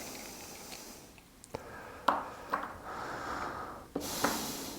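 Handling noise at a workbench: a few sharp clicks with stretches of rubbing and scraping as a crimped spade connector is worked with pliers and a vise.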